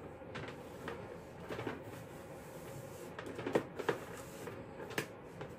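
Soft rustling of a corded TYMO heated straightening brush being pulled through long hair, with a few light clicks and taps of the brush and cord, the sharpest about three and a half seconds in and again near the end, over a faint steady hum.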